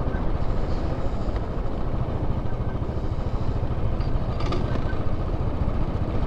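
Motorcycle on the move: steady wind rush over the microphone with the engine running underneath.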